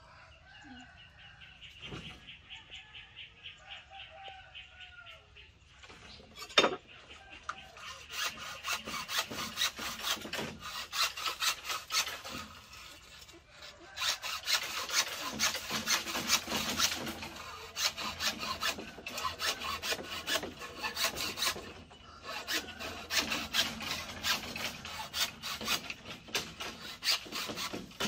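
Rhythmic rasping strokes of a hand tool working wood, like sawing or scraping, faint at first and growing louder after about eight seconds. A single sharp knock stands out about six seconds in.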